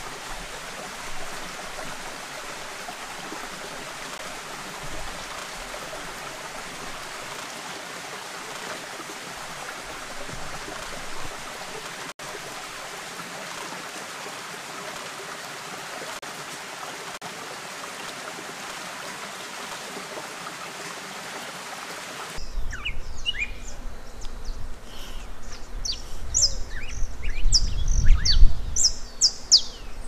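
Steady rushing hiss of a forest stream for the first twenty-odd seconds, cutting off abruptly. Songbirds then chirp in short, sharp, descending notes over a low, gusting rumble of wind on the microphone that grows louder toward the end.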